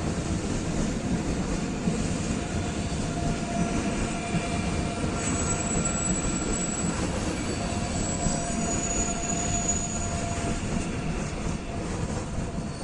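A train running through a station at low speed: steady rolling rumble, with thin high wheel squeals that come and go over it.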